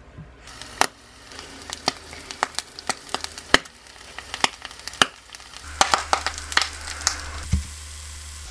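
A kombucha SCOBY frying in hot oil in a non-stick pan: a steady sizzle with frequent sharp crackling pops.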